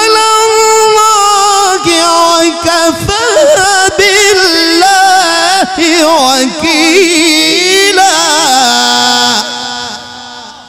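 Male qari's solo Quran recitation in the ornate melodic tilawah style, amplified through a microphone: one voice holds long vowels with rapid wavering ornaments. The phrase ends about nine and a half seconds in, and its echo fades away.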